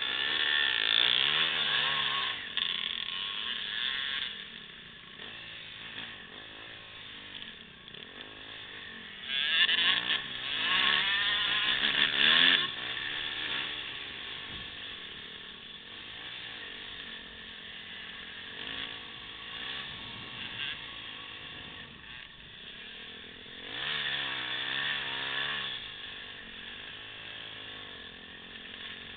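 Dirt bike engine revving up and down through the gears, its pitch rising and falling. It gets loud three times: at the start, about ten seconds in, and again shortly before the end.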